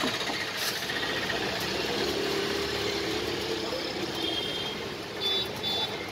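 Street traffic noise: a steady hum of vehicle engines, with a few short high-pitched tones near the end.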